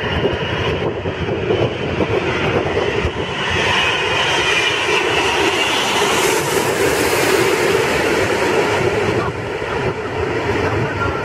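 Four-engined Airbus A380 jet passing low overhead on landing approach: a loud continuous engine rush that swells to a peak about halfway through and then eases off.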